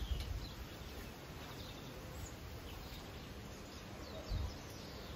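Wind buffeting the microphone, with low rumbling gusts at the start and a little after four seconds in, and a few faint bird chirps in the background.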